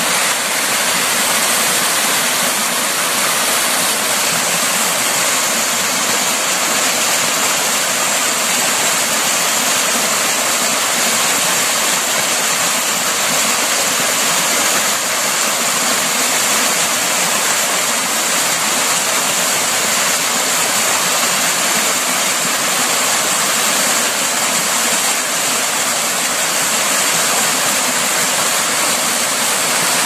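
Small waterfall pouring over rock into a pool: a steady, unbroken rush of falling water.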